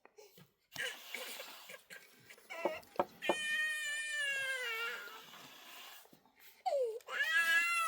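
A cat meowing: two long, drawn-out meows that fall in pitch, the second starting near the end, with a few short knocks and a rustle before them.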